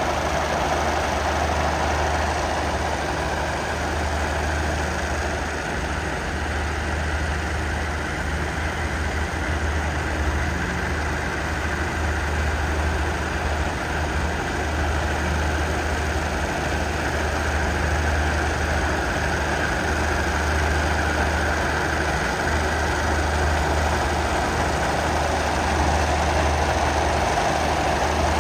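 Diesel train engine running steadily with a deep, even low hum.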